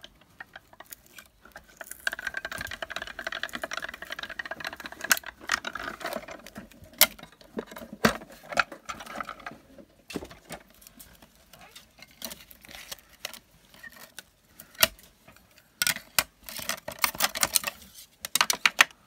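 Paper and washi tape being handled: rustling and crinkling with scattered sharp clicks, and a dense spell of crackling near the end.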